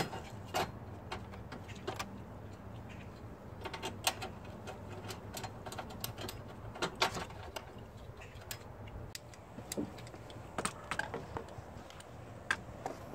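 Scattered, irregular light clicks, knocks and rattles of hands handling parts around the radiator and plastic fan shroud, with one sharp click at the very start, over a faint steady low hum.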